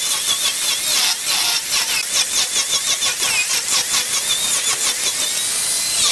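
Angle grinder carving wood: a steady high motor whine whose pitch wavers up and down as the disc bites into the wood and eases off, over a rough grinding noise.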